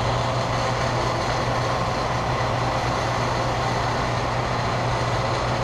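Electric boiler feed pump running, pumping water from the condensate tank into the steam boiler: a steady hum with an even mechanical noise over it.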